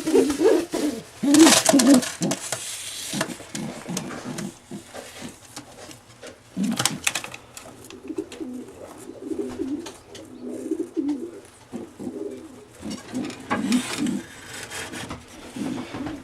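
Racing pigeons cooing repeatedly in low, soft calls, with a few short scuffling noises in between.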